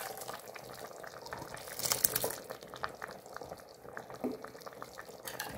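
A pot of green lentil soup bubbling while the last of a hot butter, red pepper and mint mixture is poured in from a small pan. A spoon gives a few light knocks and scrapes against the pan, about two seconds in and again near the end.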